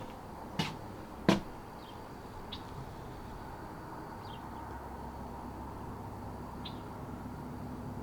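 Two sharp knocks about two-thirds of a second apart near the start, then a steady low outdoor background with a few faint, short high chirps.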